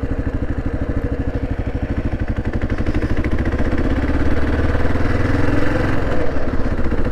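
Kawasaki KLR 650's single-cylinder four-stroke engine running under way, with a steady rhythmic pulse. About halfway through its revs climb a little and it gets louder as the bike speeds up.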